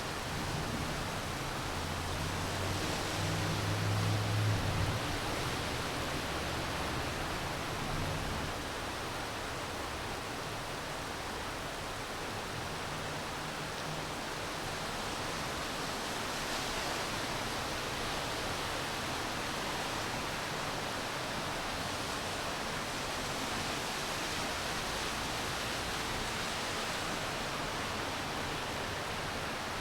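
Steady rainfall, an even hiss with no breaks. A low rumble swells during the first few seconds and comes back faintly about twelve seconds in.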